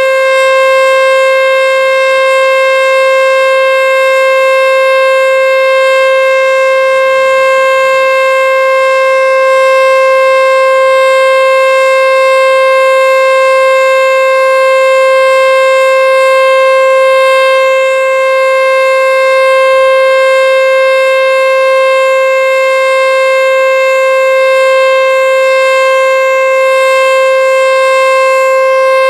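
American Signal Tempest T-121 outdoor storm siren sounding its steady Alert signal: one loud held tone that does not change pitch, swelling and easing slightly in loudness.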